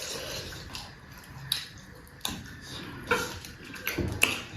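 Close-up eating sounds: a handful of short, wet mouth clicks and smacks while chewing, spaced about a second apart.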